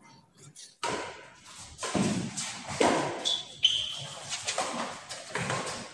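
Badminton doubles rally: rackets striking the shuttlecock and players' feet moving on the court, a string of sharp hits and thuds, with a few short high squeaks near the middle.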